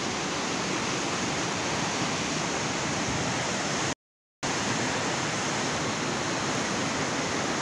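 Fast-flowing floodwater rushing and churning in a torrent, a steady loud water noise. It cuts out completely for about half a second near the middle, then resumes unchanged.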